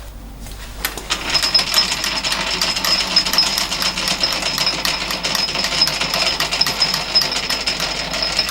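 Metal lathe starting up about a second in and running steadily, a boring bar cutting out the bore of a die grinder part, with a high steady whine and rapid ticking.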